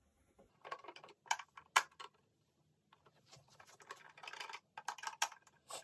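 Screws being backed out of the plastic base of a Philips Fidelio E5 surround speaker: faint, scattered clicks and scrapes of the screwdriver and handling. There are two sharper clicks about a second and a half in, and a denser run of scraping in the second half.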